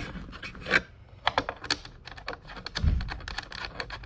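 Quick, light clicks and taps of hard plastic as a 3D-printed armrest is fitted and bolted onto a car's plastic center console, with one dull thump about three seconds in.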